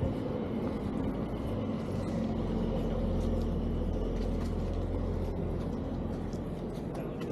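A large motor vehicle's engine running. Its steady low hum strengthens about a second and a half in and eases off near the end.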